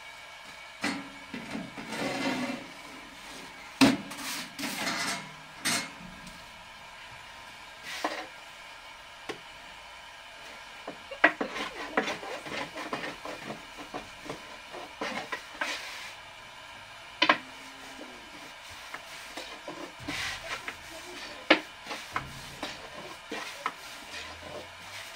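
Irregular knocks, clicks and short scraping or rubbing sounds, as of objects being handled and set down.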